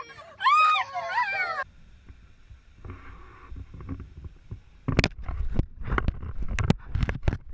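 A dog whining in a few high yelps that rise and fall in pitch, lasting about a second and a half. From about five seconds in come a run of sharp clicks and knocks.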